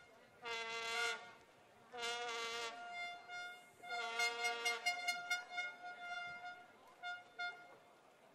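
Spectators' handheld horns blowing: three long blasts on a low note, about half a second, two and four seconds in, with short repeated toots on a higher-pitched horn in between and on until near the end.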